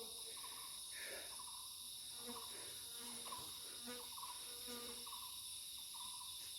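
A steady, high-pitched chorus of forest insects, with scattered faint short notes beneath it.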